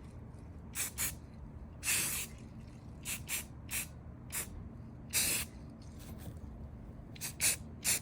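Spray paint hissing from a nozzle in about ten short bursts, with longer sprays about two and five seconds in.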